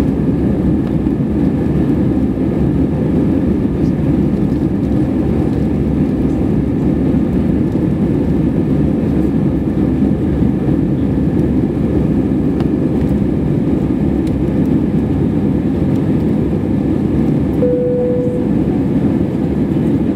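Steady cabin noise inside an Airbus A320 in flight: the jet engines and the rush of air, a deep even roar. A short steady tone sounds once, near the end.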